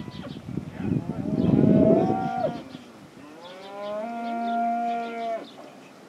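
Cattle bawling: two long moos, the first rising in pitch before it holds, the second held steady for about two seconds.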